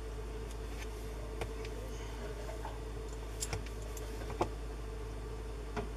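Faint, scattered light ticks and taps, about half a dozen, as small wires are handled and touched with a soldering iron during a wire splice. They sit over a steady low hum.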